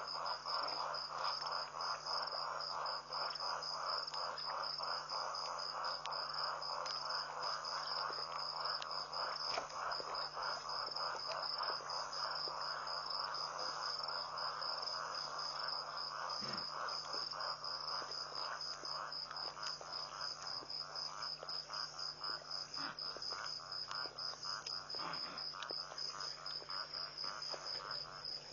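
Night insect chorus: a steady, high cricket trill with a lower, rapidly pulsing chorus beneath it, over a faint steady low hum.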